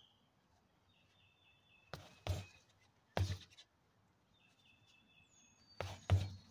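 16 oz boxing gloves punching a stack of rubber tires: dull thuds, two close together about two seconds in, one more a second later, then two more near the end. Between the punches a bird twice gives a repeated high trill.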